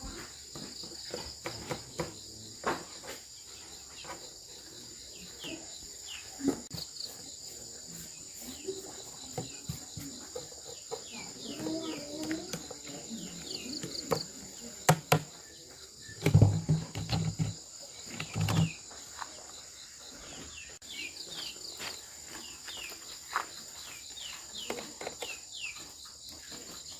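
Insects, crickets, chirring steadily with short high chirps, over scattered sharp clicks and knocks. A cluster of loud low thumps comes about two-thirds of the way through.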